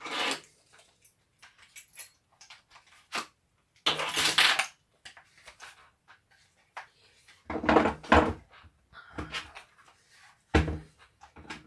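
Cordless drill parts being handled and fitted back together during reassembly: scattered clicks and rattles, a scraping rustle about four seconds in, and a few dull knocks later on.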